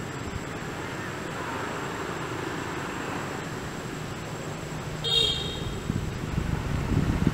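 Outdoor ambience: a steady background hiss, with a short horn-like toot about five seconds in. Gusts of wind then rumble on the microphone near the end.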